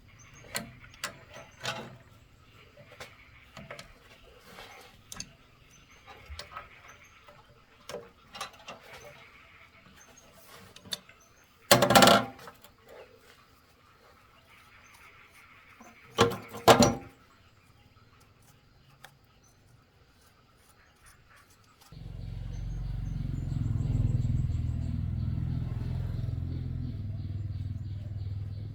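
Scattered metallic clicks and taps, two short loud bursts of noise near the middle, then about three-quarters of the way in a tractor engine starts and runs steadily with a low drone.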